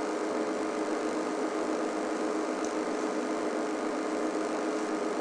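Game-drive vehicle's engine idling: a steady, unchanging hum with two constant tones.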